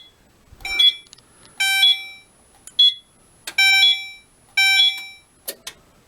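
Fire alarm notification appliance sounding in a string of short, uneven pitched blasts, about one a second. It is the alarm signal from a System Sensor i3 two-wire smoke detector tripped with its test button during a walk test.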